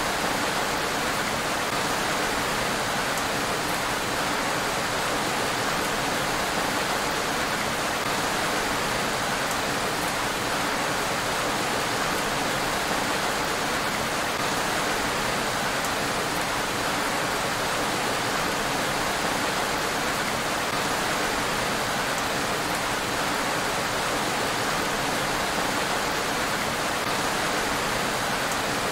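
Steady rain falling on a road: an even, unbroken hiss with no thunder.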